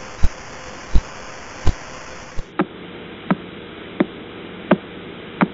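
Radio signal of pulsar B0329+54, recorded with the Lovell Telescope at Jodrell Bank and played as audio. Regular clicks about seven-tenths of a second apart sound over a steady hiss, each click one pulse from the spinning neutron star.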